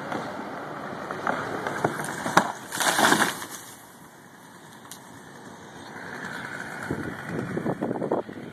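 A large willow tree coming down: a sharp crack about two and a half seconds in, then a loud crash as the trunk and its mass of branches hit the ground, dying away within about a second.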